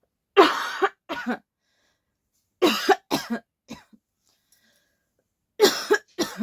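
A person coughing in three short fits, each of two or three harsh coughs, a couple of seconds apart.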